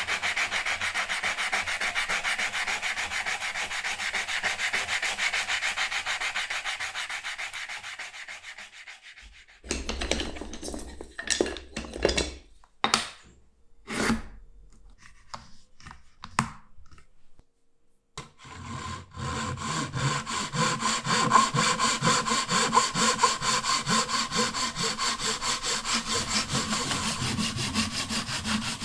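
A wooden tool handle sanded by hand with a sanding sponge: steady rhythmic rubbing that fades out about eight seconds in. After a few scattered knocks of wood and tools on the bench, a Japanese pull saw cuts a thin wooden strip held in a wooden mitre jig, in quick, even strokes, from about nineteen seconds in.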